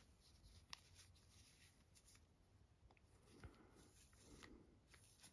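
Near silence, with a few faint ticks and a soft rustle as an action figure's fabric cape is handled.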